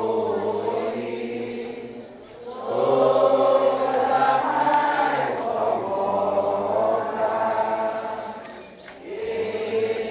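A group of voices singing a hymn together at a Catholic Mass, in long held phrases with short breaks about two seconds in and again near the end.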